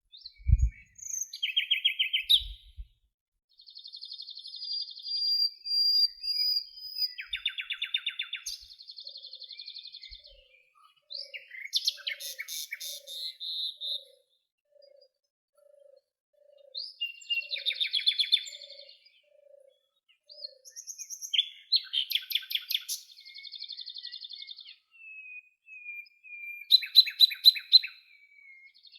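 Several songbirds singing in turns: rapid trills, whistled phrases and chirps, with short pauses between songs. In the middle a soft low note repeats about once every 0.7 s, and a brief low thump comes about half a second in.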